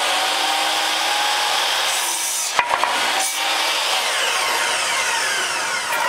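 Electric miter saw running and crosscutting a 2x4 in half: a steady loud motor and blade whine with a brief dip and a couple of clicks about halfway through. It stops near the end.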